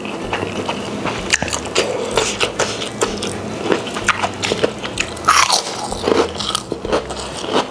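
A person chewing and biting a mouthful of spicy rice, with crunching and frequent sharp clicks of the mouth.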